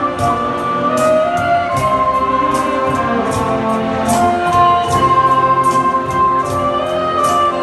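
Saxophone ensemble playing a slow melody in long held notes, with several parts together over a steady beat.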